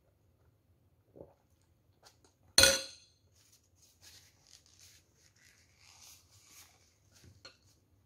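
A metal spoon clinks down once against the bowl, sharp and briefly ringing, about two and a half seconds in. After it comes a soft rustle of a paper tissue being wiped over the face.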